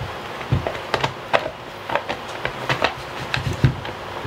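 Irregular clicks, knocks and a few dull thumps of plastic and metal chainsaw parts being handled and fitted together by hand.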